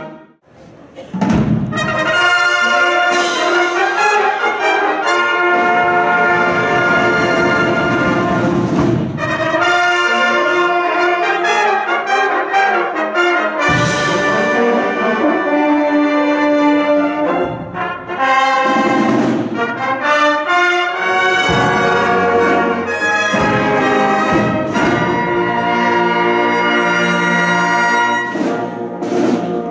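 Drum fanfare band playing: a full brass section with sousaphones over drums. The music breaks off in the first second and comes back in with a sudden loud brass chord.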